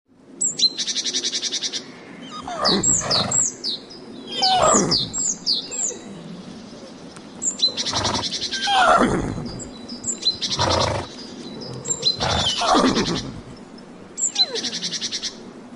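A horse whinnying several times, each call starting high and sliding down in pitch. Birds chirp and trill high above it.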